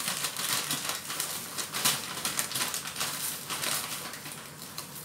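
Squid sautéing in oil in a frying pan over a gas flame, sizzling with dense, irregular crackles and pops that ease slightly toward the end.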